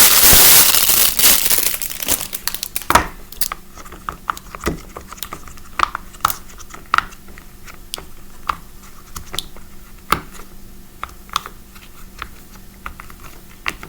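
Plastic packaging crinkling loudly for about two seconds, then a string of irregular short pops as the bubbles of a silicone pop-it fidget toy are pressed one by one.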